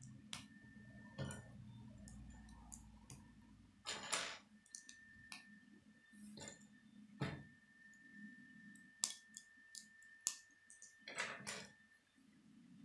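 K'nex plastic rods and connectors clicking and snapping together as they are fitted by hand, in irregular clicks with a few short rattles of loose plastic pieces.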